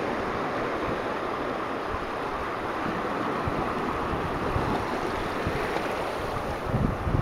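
Small waves washing steadily around the ankles in shallow surf. Wind bumps on the microphone near the end.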